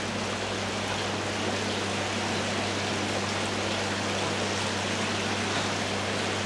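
Water falling from the blades of a brick-wall water blade feature and splashing into the pool below: a steady, even rush, with a steady low hum beneath it.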